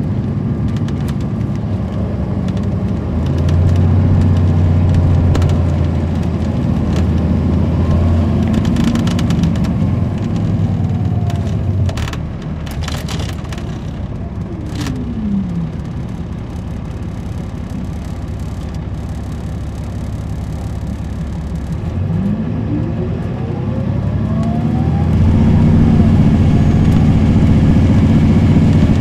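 On board an MCI D4500CL coach with a Caterpillar C13 ACERT diesel and an Allison B500R automatic: the engine runs loudly under load, then eases off with a falling tone about halfway through and runs quieter for several seconds. It then pulls hard again with a rising whine, loud near the end. A few rattles and clicks are heard around the middle.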